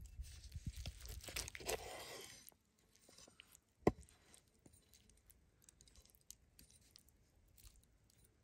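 Large cleaver cutting down through crisp-skinned stuffed chicken and vegetables on a wooden board: a crunching, tearing sound for about two and a half seconds, then a single sharp knock of the blade on the board a little under four seconds in, followed by faint small crackles.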